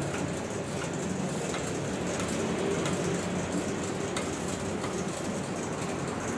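Steady running noise of factory machinery, a low hum with a few faint clicks.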